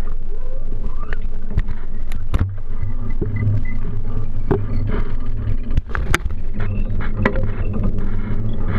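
A bicycle riding over a city street, heard from a handlebar-mounted camera: a steady low rumble with many sharp rattles and knocks as the bike goes over bumps.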